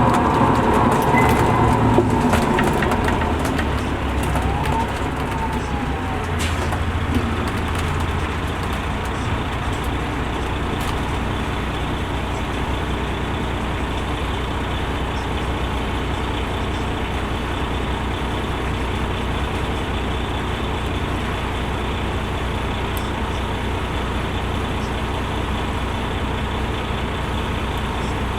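2005 MCI D4500CL coach's Caterpillar C13 diesel engine and drivetrain running with the bus under way. The sound is louder and busier for the first few seconds, then settles into a steady drone.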